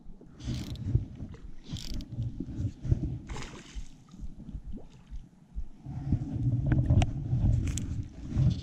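Uneven low rumble and thumps of handling and wind on a body-worn camera's microphone while a fly rod is cast, with three short hissing swishes in the first few seconds and a couple of sharp clicks near the end.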